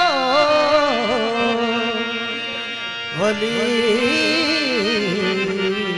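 A man singing a Sufi devotional qawwali in Punjabi over instrumental accompaniment. A long held phrase slides down in pitch, and about three seconds in a new phrase begins on the word "Ali".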